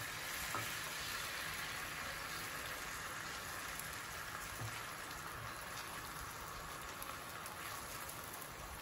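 Beaten egg frying in melted butter in a flat non-stick pan: a steady, soft sizzle that eases slightly toward the end.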